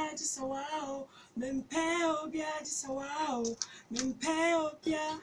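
A child singing unaccompanied: a string of short melodic phrases with held, wavering notes and brief pauses between them.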